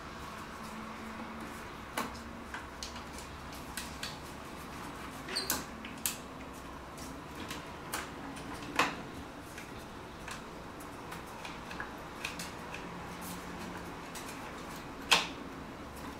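Irregular sharp clicks and light knocks of hard plastic parts being handled and snapped into place as the cannon arms are fitted onto a 1/6-scale Hot Toys ED-209 figure. The loudest click comes near the end.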